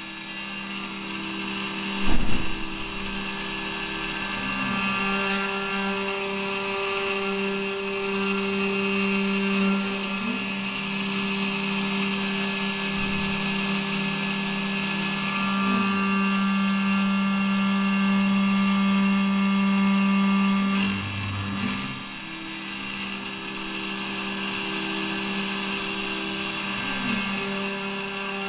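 CNC milling machine (model 7073) running its spindle as an end mill cuts aluminium, a steady high whine over hums that step to a new pitch every few seconds. A single knock about two seconds in.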